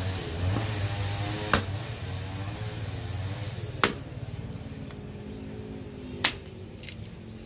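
Hatchet chopping into the top of a rosewood log to split it: three sharp strikes about two seconds apart, with a fainter knock after the last. Steady background music plays underneath.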